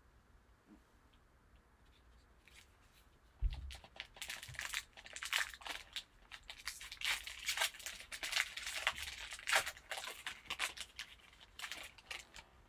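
A low thump about three and a half seconds in, then a sealed trading card pack wrapper being torn open and crinkled for several seconds.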